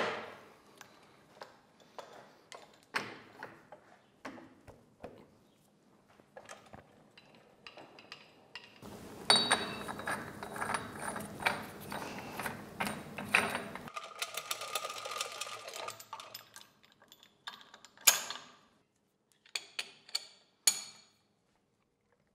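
Metal clicks, knocks and clinks from handling a lathe's four-jaw chuck, rigged with an eyebolt and a crane. In the middle there is a stretch of denser mechanical rattling and ratcheting, and a few sharp clinks come near the end.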